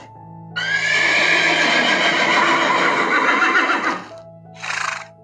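Horse whinnying: one long, wavering neigh of about three and a half seconds, then a brief second burst near the end.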